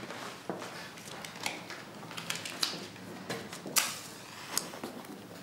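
Irregular light clicks and knocks of objects being handled, with one sharper knock about four seconds in.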